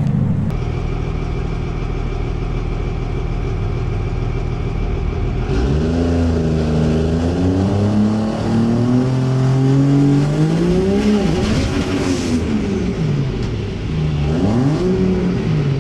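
Vehicle engine running steadily, then revving with its pitch rising and falling several times.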